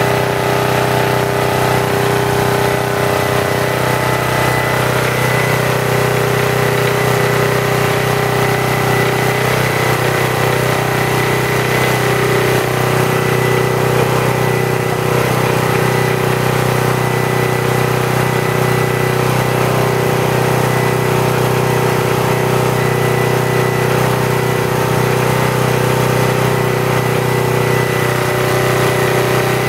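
Briggs & Stratton model NP single-cylinder engine running steadily at constant speed, driving a Farm Master 600 W generator. A thin, steady high whine sits over the engine note.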